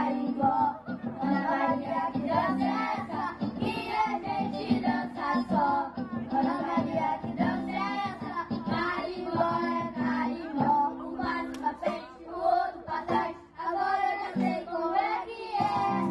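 A group of children singing a carimbó song together over live band accompaniment.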